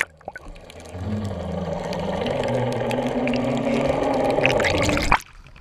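Boat engine heard underwater through the camera housing: a steady low hum with a hiss over it. It starts about a second in and cuts off abruptly near the end.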